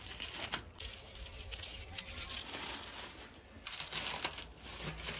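Clear plastic packing wrap crinkling and tearing as it is pulled off a bicycle frame by hand, in faint irregular crackles.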